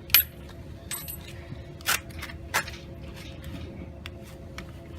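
Metal hand tools clicking and clinking, four sharp clicks in the first few seconds, the first the loudest with a brief high ring, over a faint steady hum.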